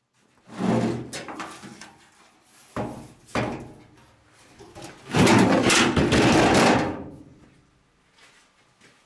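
Steel pickup tailgate handled and turned over on a plywood workbench: a few knocks of sheet metal on wood, then a louder rough scrape and clatter lasting about two seconds.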